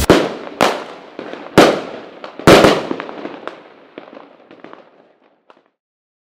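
Aerial fireworks bursting: four loud bangs in the first three seconds, each with a ringing tail, then smaller pops and crackles that die away after about five and a half seconds.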